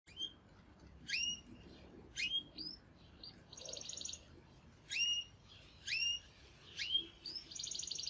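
Canary chirping: short rising call notes about once a second, with a quick trill near the middle and another starting near the end.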